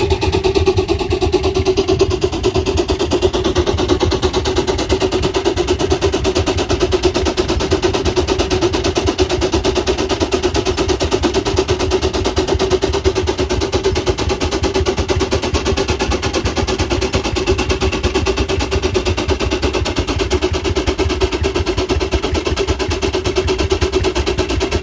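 Half-scale Gaar-Scott steam traction engine running under load on a pony brake: a rapid, even beat over a steady hum.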